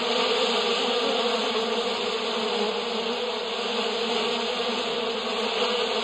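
A steady, low buzzing drone, made by lips buzzing into the end of a long beer bong tube, blown like a didgeridoo.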